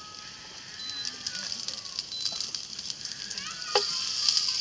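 Food sizzling and crackling in a hot pan, getting louder about three-quarters of the way through, after a sharp click.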